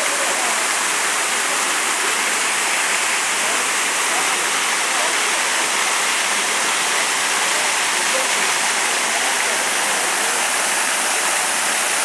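Artificial waterfall pouring down a rock face into a pond: a steady, unbroken rush of falling and splashing water.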